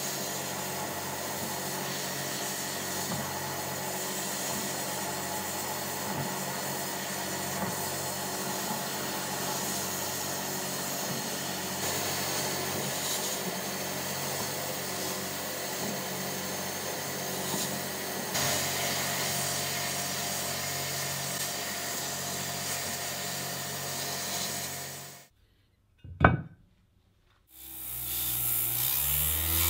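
Blast gun in a sandblasting cabinet hissing steadily as abrasive grit strikes the cast metal table of a drill stand, over a steady hum. About 25 seconds in it cuts off; after a single sharp click, a random orbital sander starts up and runs.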